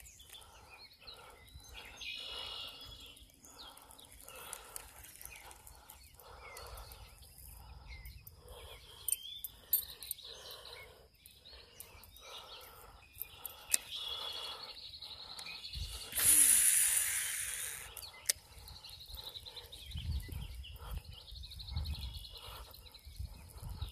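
Pond-side outdoor ambience: a steady high-pitched drone with occasional bird chirps, and a loud hiss lasting about two seconds two-thirds of the way through.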